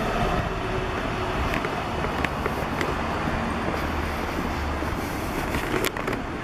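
City street traffic noise: a steady low rumble of vehicle engines, with a few sharp clicks scattered through it.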